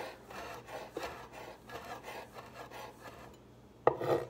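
Chef's knife finely dicing a jalapeño on a cutting board: a quick, even run of light chopping strokes, then a short pause and a louder knock near the end.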